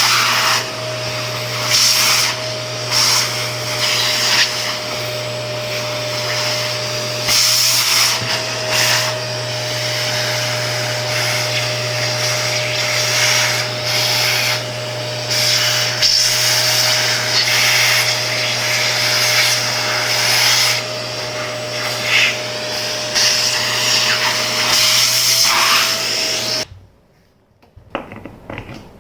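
Vacuum cleaner running steadily, its suction hiss rising and falling as the nozzle works over the parts of an electric fan. Near the end the motor switches off abruptly, followed by a few light knocks.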